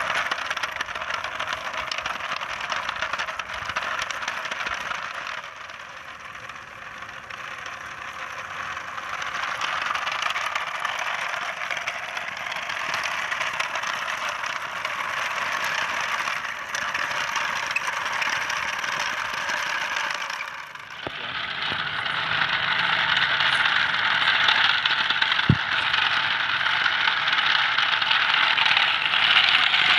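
Wheels of a wooden model train rolling over a gravelly dirt path, a steady rattle and clatter. The rattle dips briefly a few seconds in and again about two-thirds through, then runs louder, with one sharp click near the end.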